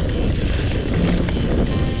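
Mountain bike riding fast downhill on a dirt trail: a steady rumble of wind on the handlebar camera's microphone mixed with tyre noise on the dirt.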